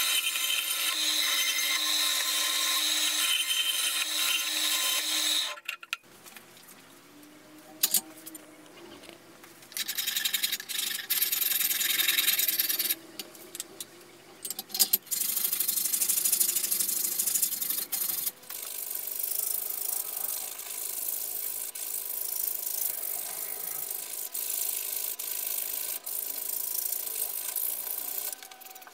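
Band saw cutting through a knife handle of wengé and linen micarta for about six seconds, then stopping suddenly. Later, a hand file rasps in repeated strokes across the same handle, clamped in a vise.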